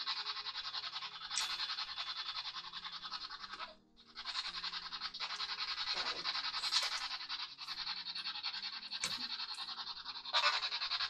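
A steady electronic buzzing hiss that cuts out for a moment about four seconds in, over soft background music with slow, sustained low notes.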